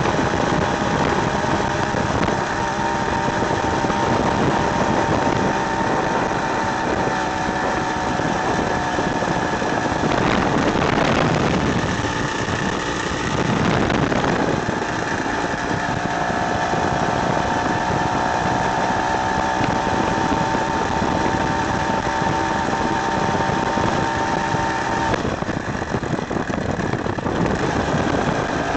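Two-stroke engine from a Ural chainsaw running on a motorized wheelchair under way, its steady buzzing note shifting up and down with the throttle. Two louder rushes of noise come about ten and thirteen seconds in.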